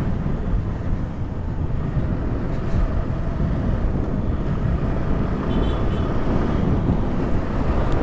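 Steady motorcycle riding noise: engine and road rumble mixed with wind rumbling on the microphone.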